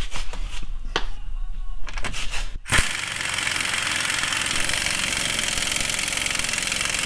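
A few light metallic clinks, then about three seconds in an impact wrench starts and runs steadily, hammering a nut tight.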